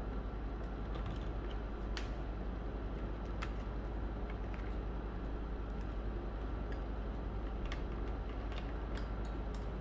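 Faint clicks and ticks of a screwdriver and a wire being worked into a screw terminal on a plastic relay-base terminal strip, a few scattered strokes over a steady low hum.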